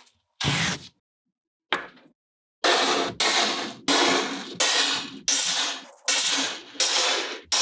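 Two short soft sounds of kinetic sand being worked out of a cylinder mould. About two and a half seconds in, music with a steady cymbal-and-drum beat starts, about two hits a second.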